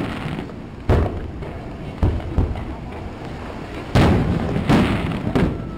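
Aerial fireworks shells bursting overhead: about six sharp booms in quick succession, each followed by a fading rumble.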